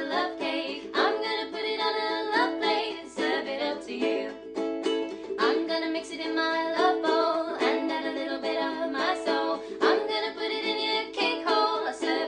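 A song with a strummed string instrument and a singing voice.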